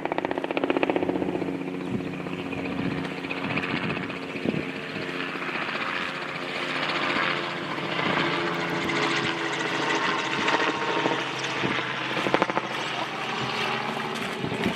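A steady engine drone with a fast, even beat running throughout.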